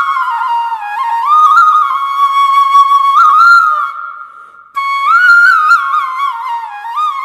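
Background music: a single flute melody with ornamented slides and turns. It breaks off for under a second about halfway through, then picks up again.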